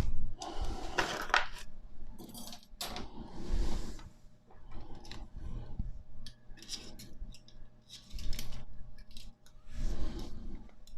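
Steel bicycle spokes clinking and rattling against each other and the wheel as they are threaded through the hub and laced into the rim, with irregular small metallic taps and a few brief scrapes.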